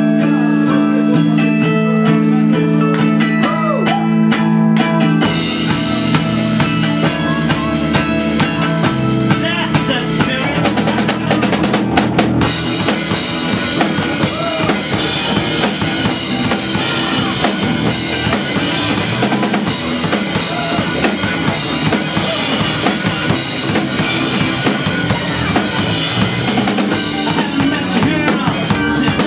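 Rock band playing live, with no vocals: held electric guitar chords at first, then the drum kit and the rest of the band come in about five seconds in and play on.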